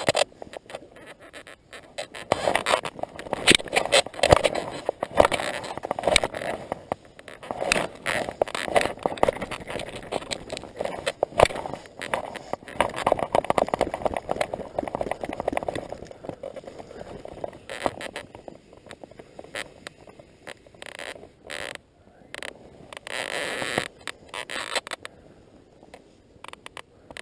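Click-and-pawl fly reel ratcheting in rapid runs as its spool spins while a hooked fish is played. The clicking comes in long dense runs through the first half, then in shorter bursts that die away near the end.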